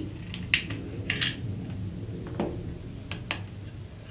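A few sharp plastic clicks and small taps as a mains plug's plastic housing and cable are handled and turned over in the hands, over a low steady background hum.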